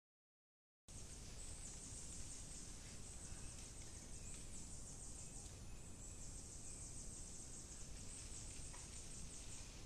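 Dead silence for about the first second, then faint tropical forest ambience: a steady high-pitched insect chorus that swells and fades in waves, over a low rumble.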